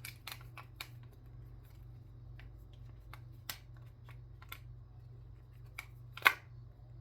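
Shape-shifting fidget cube being folded by hand into a new shape: scattered sharp clicks and snaps as its segments come together, several in quick succession about a second in and the loudest snap near the end.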